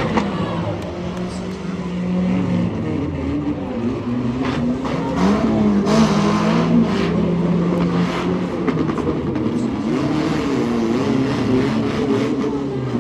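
Several banger racing cars' engines revving and running unevenly around a dirt oval, their pitch rising and falling as they accelerate and back off. A few sharp bangs come in the middle, typical of cars hitting each other.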